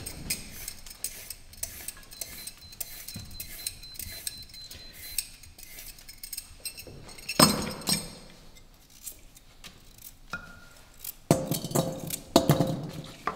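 Hand vegetable peeler scraping along a carrot in many short strokes, with a few louder clinks and knocks of kitchenware about seven seconds in and twice near the end.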